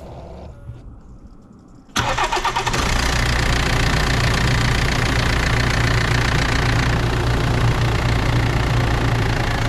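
Cold start of a BMW M47 four-cylinder turbodiesel engine: after about two seconds of quiet it cranks and catches suddenly, then settles into a steady idle. The engine is cold, the condition in which its squeaking noise appears.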